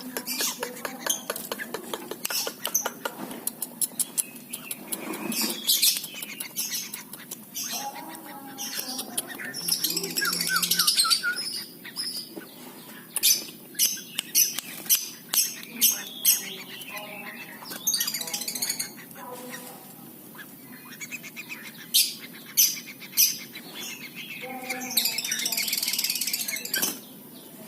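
Yellow-vented bulbul (trucuk) calling in short chirps and squawks during a bath, mixed with many sharp clicks and two longer hissing bursts, about ten seconds in and near the end.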